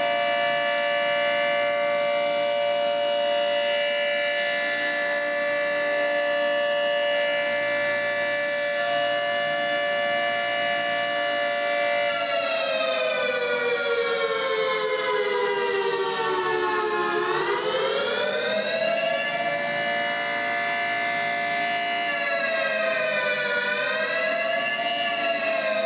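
Federal Signal 3T22 three-tone tornado siren sounding its chord. It holds a steady pitch for about twelve seconds, then winds down over several seconds and winds back up. It holds again, dips briefly, and starts winding down near the end.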